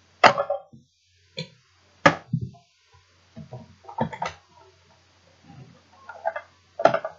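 Plastic knocks and clicks from a Nerf Modulus blaster and its attachments being handled and fitted together. A string of short, sharp knocks, the loudest just after the start and about two seconds in.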